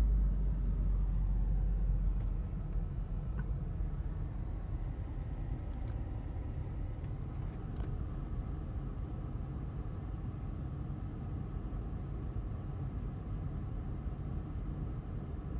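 Steady low rumble of a car running, heard from inside its cabin, heavier and deeper for the first three seconds or so.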